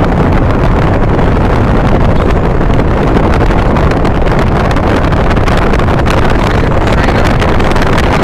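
Steady road and wind noise inside a moving car, with wind buffeting the microphone.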